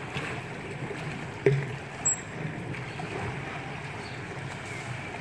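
Steady wash of swimming-pool water splashing and lapping. A brief, short sound about one and a half seconds in.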